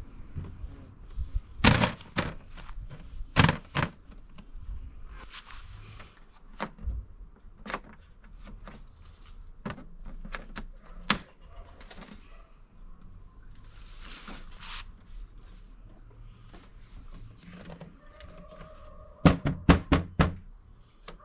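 Folding camping table's metal legs being swung out and snapped into place, with sharp clicks and clacks now and then and a quick run of about five near the end.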